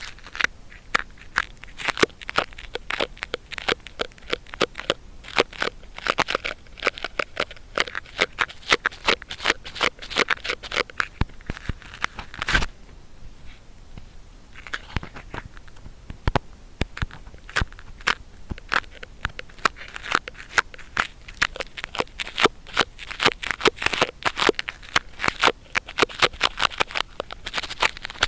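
Ear cleaning with an adhesive cotton swab: a dense, irregular run of sticky crackles and scratches, with a short pause about halfway through.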